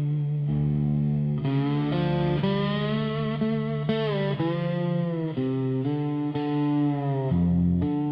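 Instrumental intro of a slow dark country song: a distorted guitar plays sustained, bending notes over a steady low note, changing about once a second.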